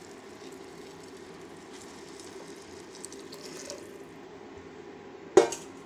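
Boiling water poured from a jug onto fried rice in a metal pot: a steady splashing pour that stops about four seconds in. A single sharp knock near the end.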